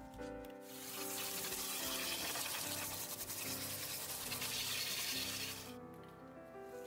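Pressure washer spraying water onto an old buggy seat, a steady hiss that starts about half a second in and cuts off near the end. Background music plays throughout.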